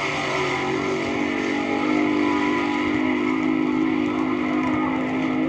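AA/Fuel dragster's nitro-burning Hemi engine at full throttle during a quarter-mile run. It is a loud, steady engine note whose pitch sinks slowly from about two seconds in as the car pulls away down the track.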